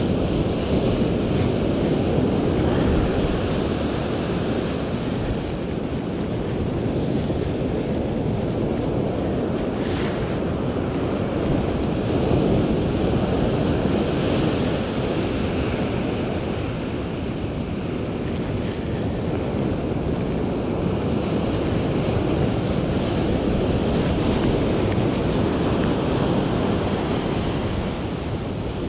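Ocean surf breaking and washing up a sandy beach: a steady rush that swells and eases slowly, with wind buffeting the microphone.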